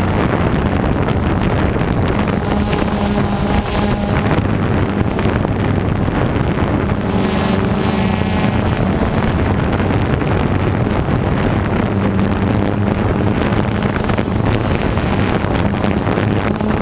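Camera drone's propellers humming steadily at a low pitch in flight, with wind buffeting the microphone.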